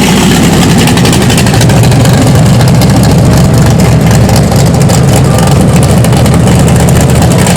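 Car engine running at idle close by, a loud, steady deep rumble with a fast, even pulsing.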